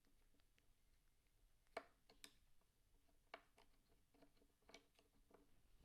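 Near silence with a few faint, scattered clicks and taps from hands and a tool working on the Columbia Q phonograph's governor bracket as it is loosened and freed.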